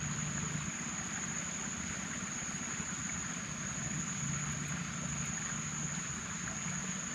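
Steady swamp-creek ambience: a constant high-pitched insect drone over a low, even hum, with no distinct events.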